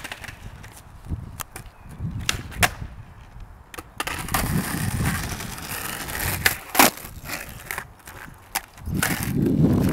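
Skateboard wheels rolling on rough asphalt with a steady rumble, broken by several sharp clacks of the board's deck and tail hitting the pavement, the loudest a little past the middle.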